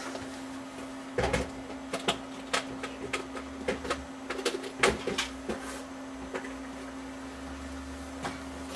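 Handling noise from a cardboard box being picked up and handled: a run of light clicks, knocks and rustles for the first six seconds or so, then it settles, over a steady low hum.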